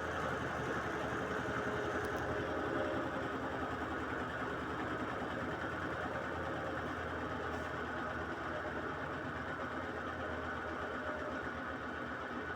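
Brastemp Clean 7 kg top-loading washing machine running with a steady mechanical hum and whir, a noise its owner takes for a worn drum bearing.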